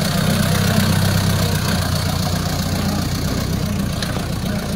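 Engine of a loaded light dump truck running steadily at low revs as the truck rolls slowly past.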